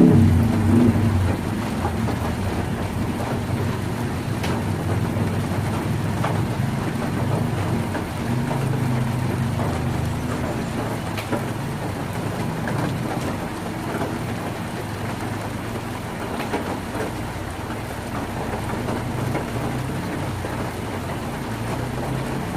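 Heavy rain drumming on a tin roof: a steady hiss with scattered sharper drop hits. A loud low rumble fades away over the first second or so, and a fainter low rumble comes and goes under the rain.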